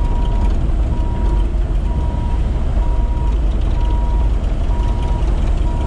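Caterpillar 308E excavator's diesel engine running with a steady low rumble as the machine travels on its tracks, and its travel alarm beeping evenly, about one half-second beep every second.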